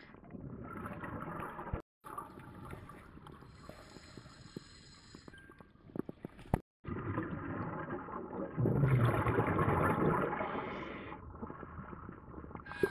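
Scuba diver breathing through a regulator underwater: hissing inhalations and a louder rush of exhaled bubbles about nine seconds in. The sound drops out briefly twice.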